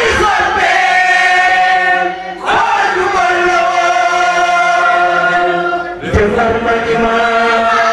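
A group of men's and women's voices chanting together in long held phrases, with a new phrase starting about two and a half seconds in and again about six seconds in. It is a Layène devotional chant led by a male singer.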